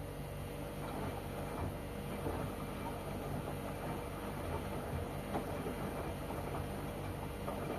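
LG washing machine running its wash cycle: a steady motor hum with the drum turning the load.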